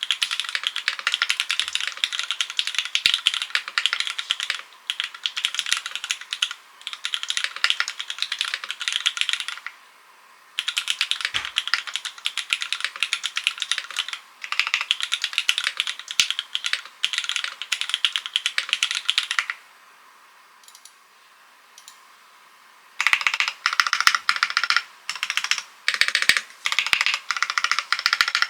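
Typing on a Transition TKL mechanical keyboard with Cherry MX Black linear switches, a carbon top-mount plate, no foam and ABS+PBT keycaps: fast runs of keystrokes broken by short pauses. After a pause of about three seconds, the presses come as separate single strokes, about two a second.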